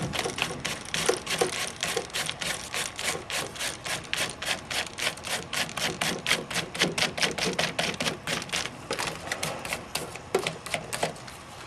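Plastic binding coil being turned by hand through the punched holes of a paper book, giving a quick, even run of clicks, about four a second, that thins out near the end as the coil finishes winding in.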